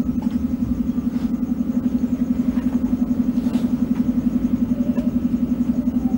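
A steady low hum that pulses rapidly and evenly.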